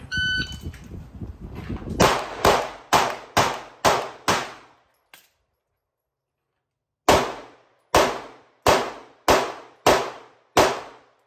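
A shot timer's start beep, then two strings of six pistol shots each, fired about half a second apart. The strings are separated by a pause of about two and a half seconds.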